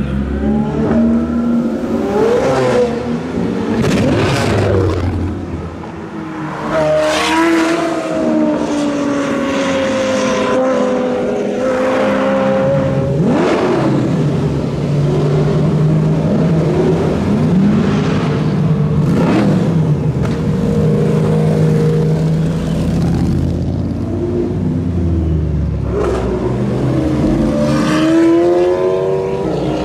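Supercar engines revving and accelerating hard as they pull away, with several separate rises in engine pitch over a steadier lower engine note.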